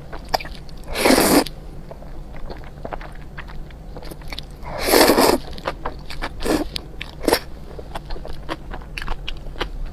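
Close-up eating of spicy noodles: two long slurps, about a second in and again about five seconds in, with short chewing and mouth clicks in between.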